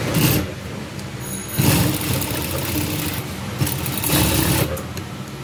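Industrial lockstitch sewing machine running in several short spurts, stitching pink binding tape onto blue fabric through a double-fold binder folder.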